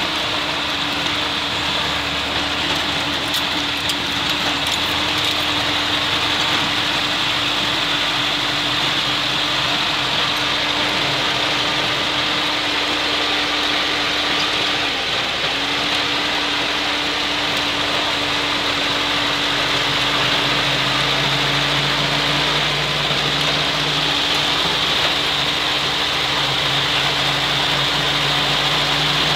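UAZ off-roader's four-cylinder petrol engine and drivetrain running while driving through snow, heard from inside the cab: a steady drone with a constant whine that dips briefly twice, and a lower hum joining about two-thirds of the way through.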